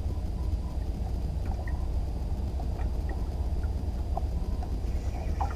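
Steady low rumble of wind on the microphone and water around a small boat, with a few faint scattered ticks.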